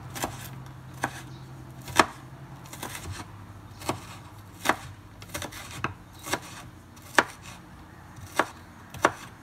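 Chef's knife chopping red onion on a wooden cutting board: slow, unevenly spaced knocks of the blade striking the board, about one a second.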